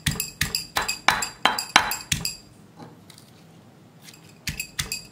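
A pestle pounding in a stone mortar, bruising mint leaves and lime pieces. Each stroke is a short ringing clink, about three a second, with a pause of about two seconds midway before the pounding resumes near the end.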